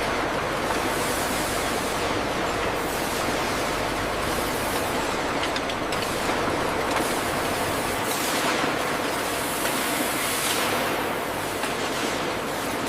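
Steady workshop machinery noise: a continuous rushing hiss over a low hum, swelling and easing every second or two.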